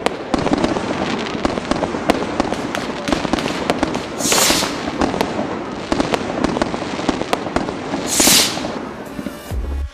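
Fireworks and firecrackers going off in a dense run of bangs and crackles, with two loud hissing bursts about four and eight seconds in.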